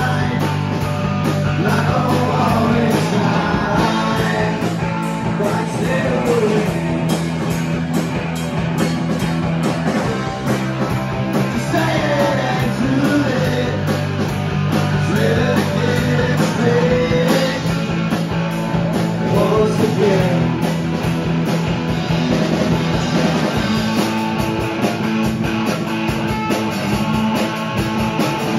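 A rock band playing live: drum kit, electric guitars and bass guitar, with a lead singer singing over them.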